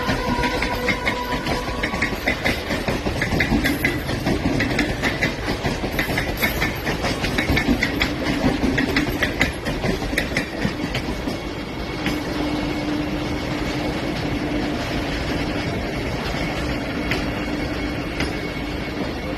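Vande Bharat Express electric trainset running along the track, its wheels clicking rhythmically over the rails. Past the middle the clicking fades and it settles into a steadier rumble with a low, even hum.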